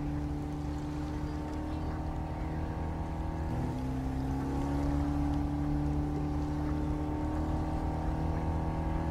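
Pilot boat's engine running under way, a steady drone over the rush of water, its pitch creeping slowly upward. The pitch drops suddenly about three and a half seconds in, then keeps climbing.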